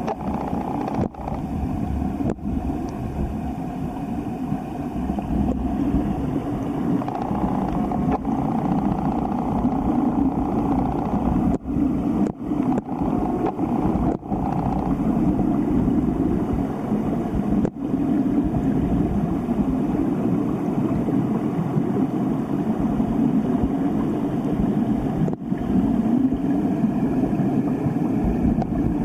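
Steady rushing of a mountain stream tumbling over rocks, a deep, even churning that briefly cuts out several times.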